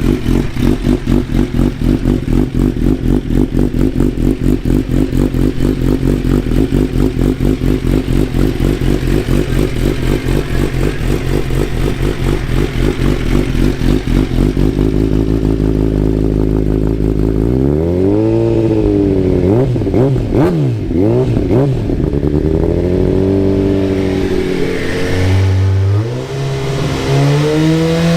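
A 2018 Suzuki GSX-R 1000's inline-four engine running through a Brock's Predator full titanium exhaust system. It idles steadily at first, then about two-thirds of the way in is revved in several rising and falling throttle blips, ending held at raised revs.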